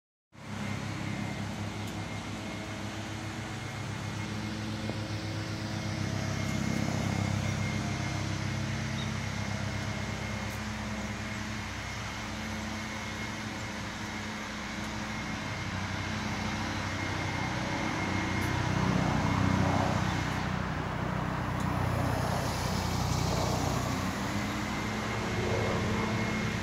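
Harley-Davidson motorcycle's V-twin engine idling steadily, growing briefly louder about nineteen seconds in.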